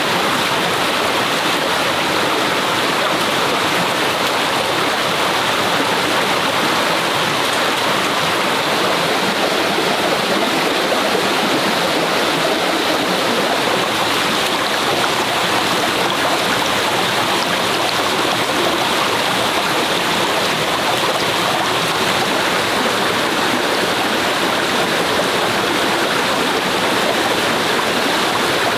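Forest stream running: a steady, unbroken rush of flowing water.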